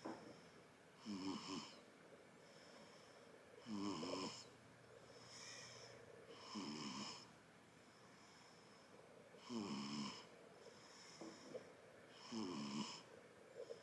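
A one-month-old baby snoring in her sleep: a rattling snore on each breath, five of them about every three seconds, with softer breaths in between.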